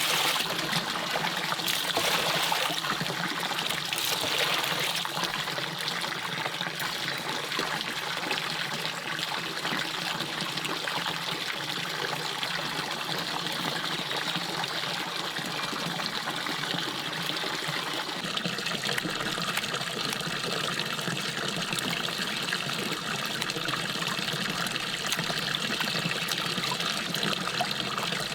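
Stream water trickling and flowing steadily, its tone shifting slightly about eighteen seconds in.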